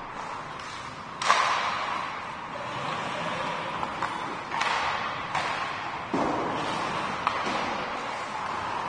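Hockey play in a rink: sharp stick and puck knocks, the loudest a bang about a second in that rings on briefly, with further knocks near the middle, over a steady rink din.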